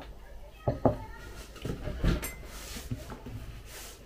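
Tea being sipped from a glass mug, then light knocks and clinks as the mug is set down on the table and a spoon is picked up; the sharpest knock comes about a second in.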